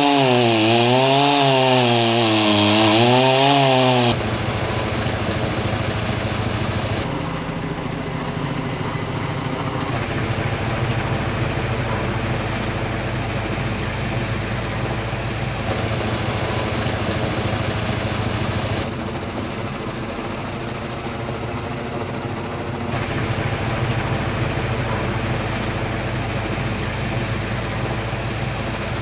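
Chainsaw cutting through the trunk of a large Nordmann fir, its engine revving up and down for about four seconds. After a cut comes a steady, continuous helicopter engine and rotor sound, broken by several abrupt edit cuts.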